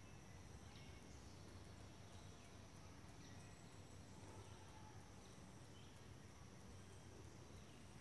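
Faint forest ambience: a steady, high-pitched drone of insects, with a few faint scattered chirps over a low background rumble.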